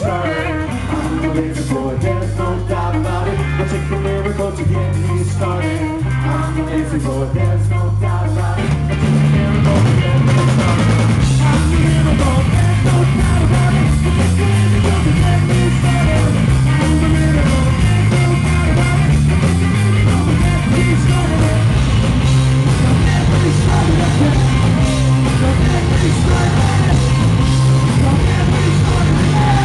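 Live rock band playing: electric guitar, bass and a singing lead vocal. About eight seconds in, the full band comes in louder and denser, with drums.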